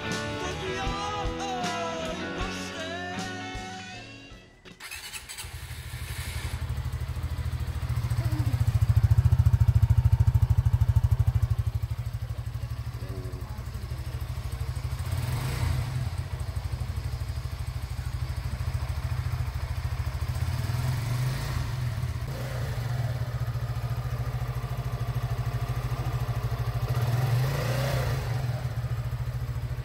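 A rock song with singing ends about five seconds in. Then a Suzuki Gixxer 155's single-cylinder engine runs, louder for a few seconds before settling to a steady idle.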